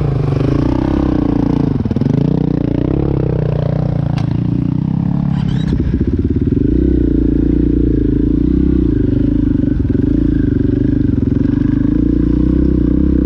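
KTM 500 enduro bike's single-cylinder four-stroke engine running under way on a trail ride; the revs drop and pick up again in the first few seconds, then hold fairly steady with small rises and falls.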